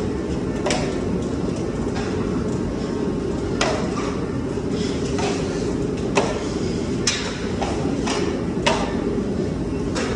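Drywall taping knife scraping and clacking against a mud pan and the wall as joint compound is loaded and spread, a sharp stroke every one to three seconds. A steady low rumble runs underneath.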